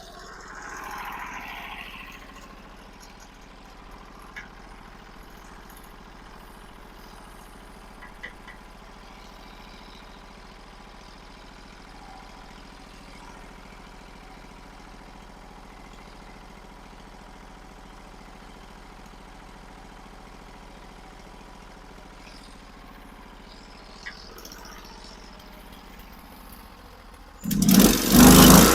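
Norwood HD36 sawmill's engine idling steadily, with a few faint clicks. Near the end it is suddenly throttled up to a loud full-speed run, ready to cut.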